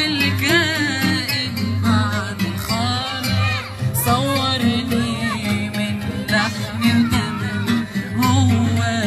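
A small group singing in unison at microphones, their lines wavering and ornamented, over oud and other instrumental accompaniment.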